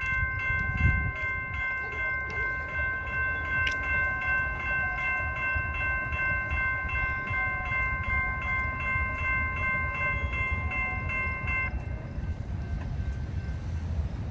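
General Signals type-2 electronic crossing bell ringing in a steady, even rhythm. It cuts off suddenly about twelve seconds in, as the gates come fully down. A steady low rumble runs underneath.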